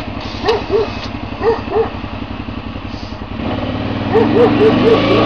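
CFMOTO ATV's engine running as it rides, picking up revs about three and a half seconds in. A run of short, high yelps sounds over it, several to a second near the end.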